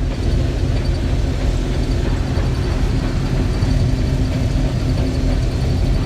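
Case IH 1660 combine running steadily under harvest load, a loud, even mechanical drone of diesel engine and threshing machinery with a faint high whine above it.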